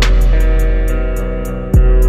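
Downtempo electronic music: sustained chords over fast hi-hat ticks, with a snare hit at the start and a deep kick drum that drops in pitch near the end.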